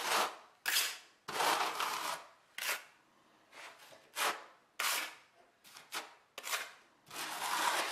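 Small steel trowel scraping mortar off a notched steel trowel and working it along the edge of a foam shower base. About a dozen short scrapes at an uneven pace, with a longer one near the end.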